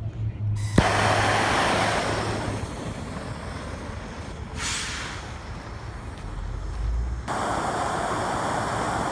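Gas torch flame hissing steadily as it heats the base of a plastic Coca-Cola bottle, with a sharp click about a second in.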